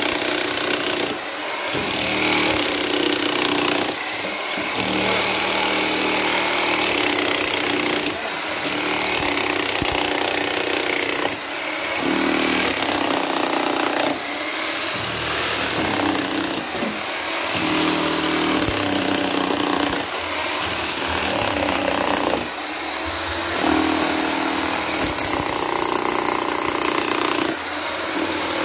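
Einhell 32-joule electric demolition hammer chiselling into packed earth and rubble, a loud, steady rapid hammering that eases off briefly every few seconds. The tool is running as it should.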